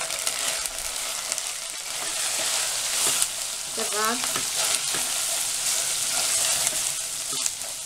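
Red chilli powder and fried onions sizzling in hot oil in a non-stick pan, stirred with a wooden spatula, with a few light knocks of the spatula against the pan.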